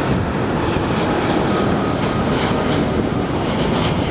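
Boeing 787-9 Dreamliner's twin jet engines running at climb power just after takeoff, a steady, loud jet roar as the airliner passes close overhead.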